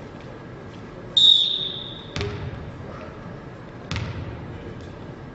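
A referee's whistle blows once, about a second in, as the loudest sound. Then come two sharp thuds of a volleyball being struck or bounced, about a second and a half apart.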